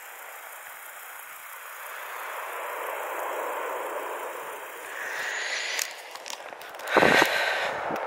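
Steady rustling hiss of breeze on the microphone, growing a little louder. About seven seconds in, a loud rumbling buffet hits the microphone.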